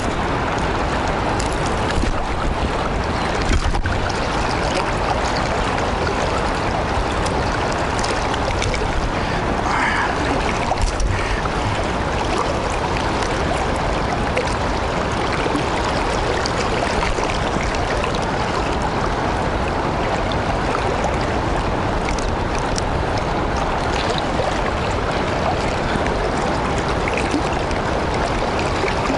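Steady rushing of fast river water in the tailwater below a lock and dam, with a couple of brief knocks in the first few seconds.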